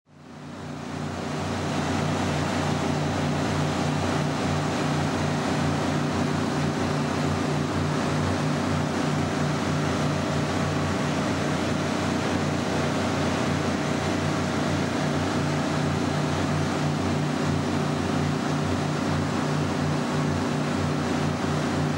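A fishing boat's engine running steadily at speed, a low hum under the rush of water churned up in its wake. It fades in over the first couple of seconds.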